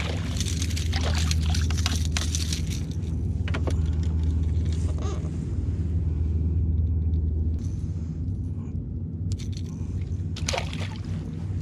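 A small hooked bass splashing at the surface on a jerkbait, then the fish being lifted aboard and unhooked in a kayak: scattered splashes, knocks and rattles of fish and gear. A steady low hum runs underneath and stops about two-thirds of the way through.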